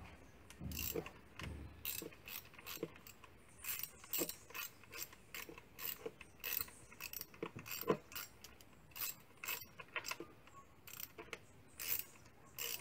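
Irregular metallic clicks, about two or three a second, from a spark plug socket and wrench as new spark plugs are run down by hand into the engine's cylinder head.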